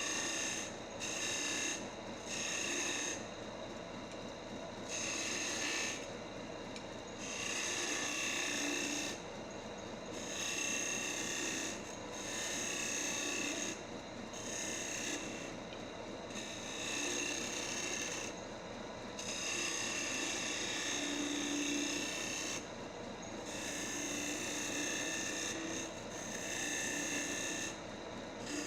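Wood lathe running steadily while a hand turning tool cuts the spinning wooden blank in repeated passes. Each cut lasts half a second to two seconds, with short pauses between.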